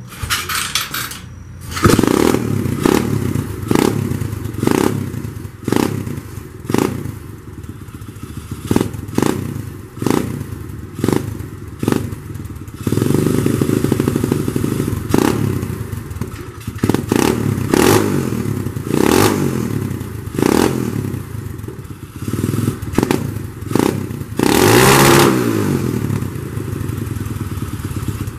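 SSR pit bike's single-cylinder four-stroke engine, run up right after an oil change. It catches about two seconds in, then runs with quick throttle blips about once a second and two longer revs that rise and fall.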